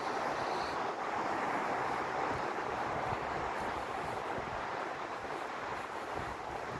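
Steady rush of wind and sea surf, with wind buffeting the microphone.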